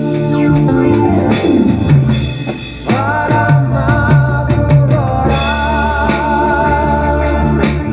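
Drum kit played along to a late-1970s Korean pop band recording in an instrumental passage: bass and snare strokes with stretches of cymbal wash over sustained keyboard and guitar tones, and one falling pitch glide about a second in.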